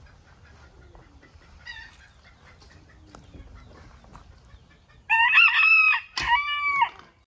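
Rooster crowing once, loud, in two long drawn-out parts starting about five seconds in, after a faint short call about two seconds in.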